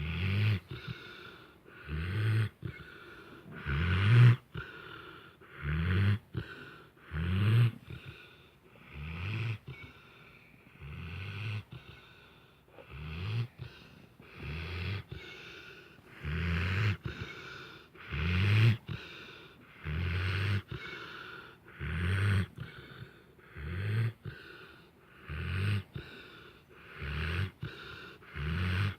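Snoring close to the ear: a short, low snore about every two seconds, regular and even.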